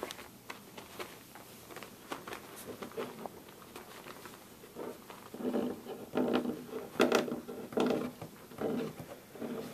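Samoyed puppy mouthing a hollow plastic toy slide, with light clicks and scrapes of teeth and paws on the plastic. In the second half comes a run of short growly grunts from the playing puppies.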